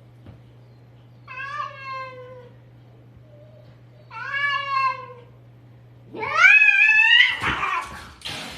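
Cats yowling in a fight standoff: two drawn-out, wavering yowls a few seconds apart, then a louder rising screech about six seconds in that breaks into a harsh, noisy outburst near the end.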